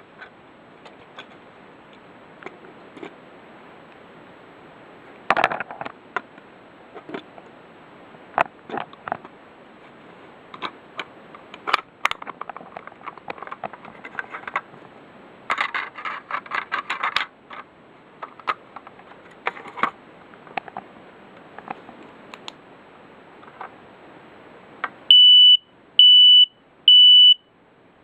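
Scattered clicks and scrapes as the smoke detector is handled. Near the end, the Kidde 0916 smoke detector's horn sounds three loud, high, steady beeps about a second apart, the start of the code-3 (temporal-3) alarm pattern.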